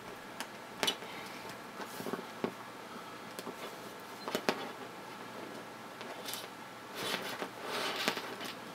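Small plastic clicks and taps as a wireless camera and its wires are worked loose from the underside of a Double Horse 9100 RC helicopter, with a busier patch of rustling and clicking near the end.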